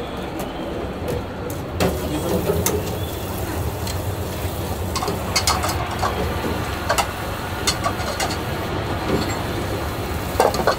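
Noodle-stand kitchen at work: a steady low hum under scattered clinks and knocks of metal noodle strainers and ceramic bowls.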